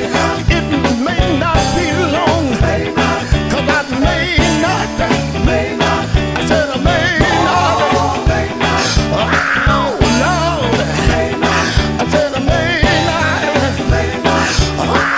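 Gospel quartet song: a singer with a wavering voice over a full band with a steady beat, bass and guitar.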